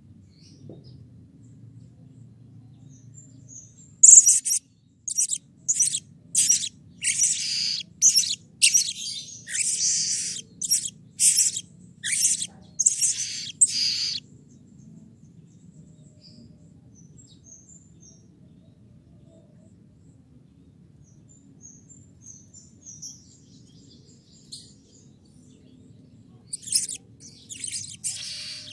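Male blue-crowned hanging parrot (serindit) calling: a rapid run of about a dozen shrill, high-pitched notes starting about four seconds in and lasting some ten seconds, followed by a lull with a few faint chirps and a second short burst of calls near the end.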